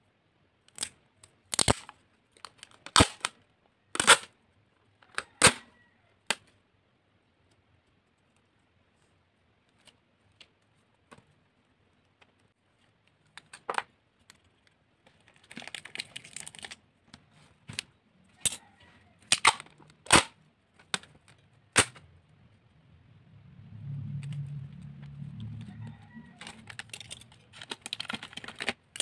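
Clear packing tape and scissors handled at close range over paper: a series of sharp snaps and clicks, with a few longer rasping stretches as tape is pulled off the roll, and a low rubbing stretch from fingers pressing tape onto the paper.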